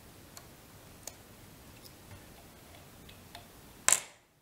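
Faint light ticks, about one every three-quarters of a second, as a wire whip-finish tool wraps the tying thread around the head of a fly on the hook. Near the end comes one sharp, much louder click.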